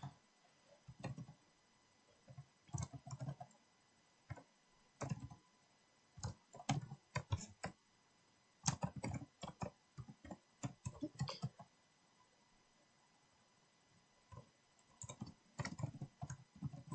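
Typing on a computer keyboard: short runs of keystroke clicks with brief gaps, and a pause of a couple of seconds about three-quarters of the way through.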